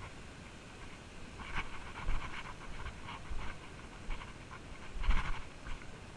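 A person breathing hard in short, uneven huffs close to the microphone while walking over loose rock, with dull footfalls underneath.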